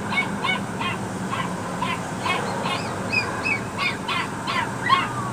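A puppy crying in a crate, a rapid series of short, high-pitched cries, about three a second.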